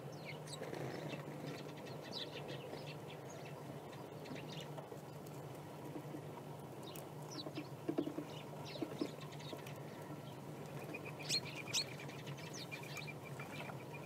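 Small songbirds chirping and calling in short high notes, with a repeated note in the last few seconds, over a low steady hum. A few sharp clicks stand out around eight and twelve seconds in.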